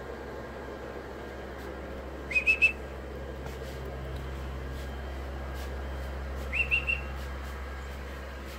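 Whistling: two quick bursts of three short, high chirps, each note sliding up and then holding, about four seconds apart, over a steady low hum.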